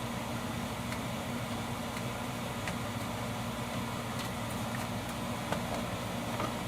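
Steady low mechanical room hum, with a few faint light clicks as small screws are handled while the vacuum's housing is screwed back together.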